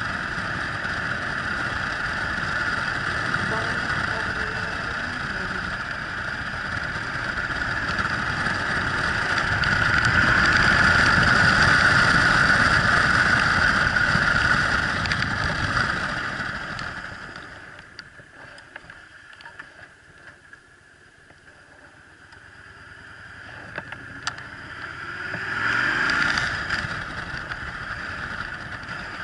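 Yamaha Drag Star 1100's air-cooled V-twin running under way, mixed with wind rush on a helmet-mounted microphone. It is loudest about ten to fifteen seconds in, drops much quieter for several seconds after that, and swells again near the end.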